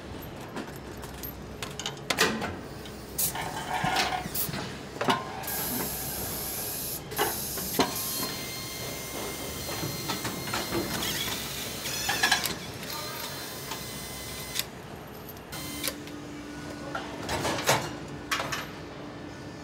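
Car assembly-line noise while a wheel is fitted: scattered sharp clicks and clanks of tools and parts, with a hiss lasting about a second and a half around six seconds in.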